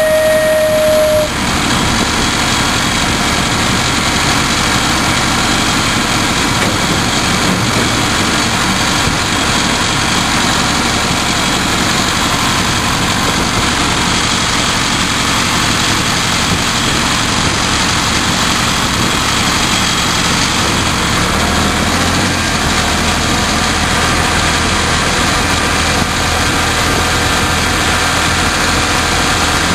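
Miniature-railway diesel locomotive running steadily under way, heard from the open coach right behind it, over a constant rush of wheel and wind noise. A held horn note cuts off about a second in, and a deeper steady engine hum comes up about two-thirds of the way through.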